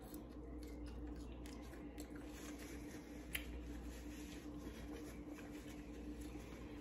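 Faint chewing and mouth sounds with soft scattered clicks, and one sharper click about three seconds in, over a steady low hum.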